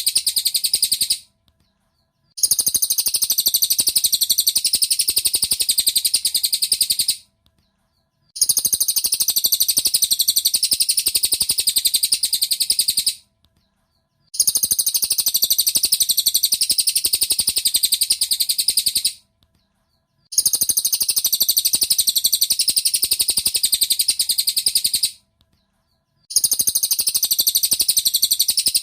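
Song of a cililin bird played as a training track: a rapid, high twittering trill in bouts of about five seconds, each broken off by a second of silence, the same phrase repeating over and over as a loop.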